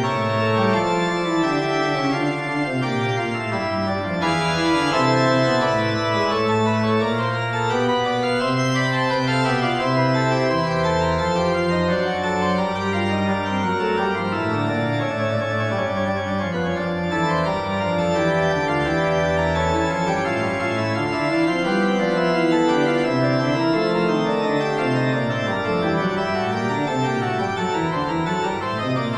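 Organ music playing slow, sustained chords over a moving bass line.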